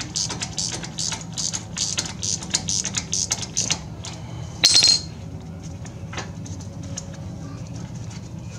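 Socket ratchet clicking rapidly as it backs out a brake caliper bolt. About halfway through there is one brief, loud metallic clank, then only a few scattered clicks.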